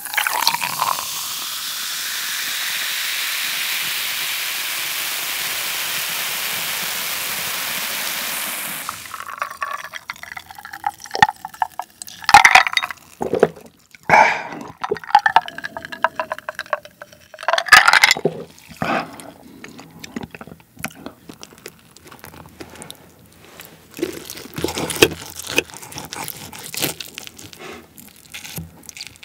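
Cola poured from a plastic bottle into a glass, fizzing with a steady hiss for about nine seconds, then several loud gulps as it is drunk. Near the end, a knife and fork clink and scrape on the plate as the burger is cut.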